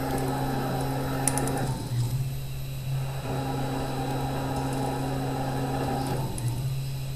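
Denford Turn 270 Pro CNC lathe taking roughing passes on a billet, its spindle turning at 2800 RPM: a steady machine hum with cutting noise over it. The cutting noise eases off twice, for about a second each time.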